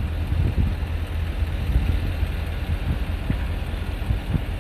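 Steady low outdoor rumble of distant traffic and wind on the microphone.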